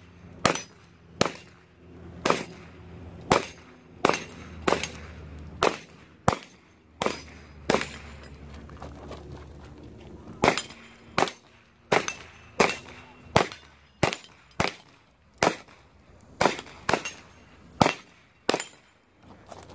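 Gunfire from a 9mm pistol-caliber carbine: about two dozen sharp shots, many in quick pairs, with short irregular pauses and a gap of about two seconds midway.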